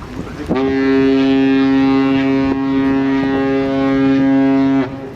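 A ship's horn sounding one long steady blast of about four seconds, starting about half a second in and cutting off near the end.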